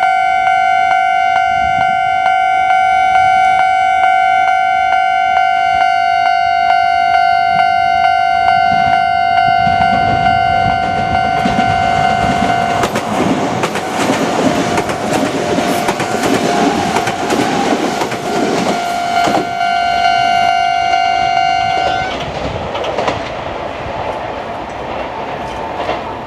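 Japanese level-crossing warning bell ringing in a steady, evenly repeating tone while a Kintetsu Minami Osaka Line electric train passes from about ten seconds in, its wheels clattering over the rail joints. The bell stops a little after twenty seconds and the train's noise fades.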